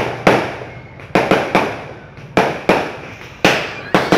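Fireworks going off in a rapid, irregular string of sharp bangs, about ten in four seconds, each trailing off in a short echo.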